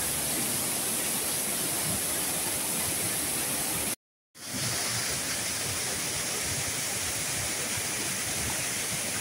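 Reservoir overflow water pouring out of a spillway outlet and churning into the pool below, a steady rushing. The sound cuts out for a moment about four seconds in, then resumes.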